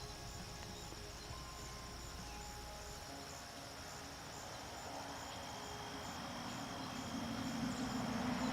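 Soundtrack of a bird video: a steady high chirring with a regular pulse, under soft scattered notes. A rushing noise builds up over the last few seconds.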